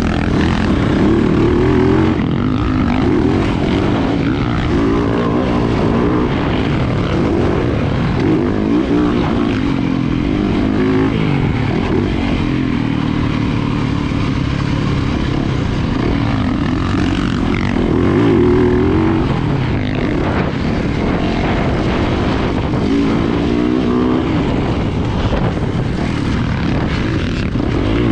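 Yamaha YZ450FX's 450 cc single-cylinder four-stroke engine heard from on board the bike under hard riding. Its pitch rises and falls over and over as the rider accelerates and backs off through the track's turns.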